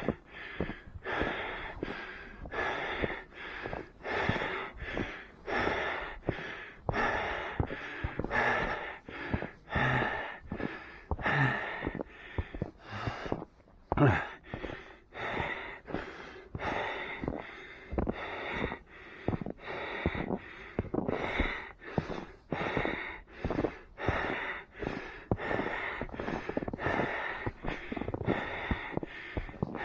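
A runner breathing hard in quick, regular breaths, in and out in an even rhythm.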